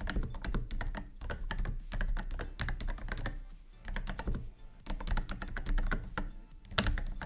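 Typing on a MelGeek Pixel mechanical keyboard: a fast, dense run of keystroke clacks, with a couple of brief pauses near the middle.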